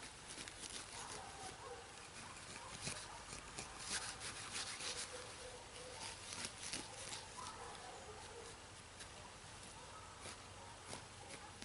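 Digging into sod and soil: faint, irregular scraping strokes, busiest about four to seven seconds in.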